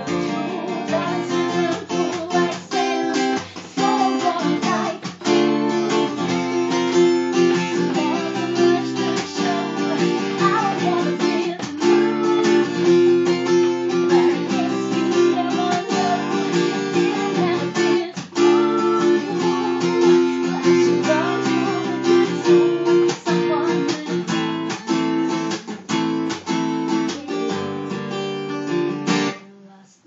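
Acoustic guitar strummed in steady chords with a woman singing over it. The music stops near the end.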